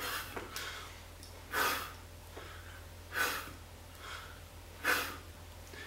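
A man breathing out sharply three times, about every one and a half seconds, one forceful breath for each rep of wide knuckle push-ups. A faint steady low hum lies beneath.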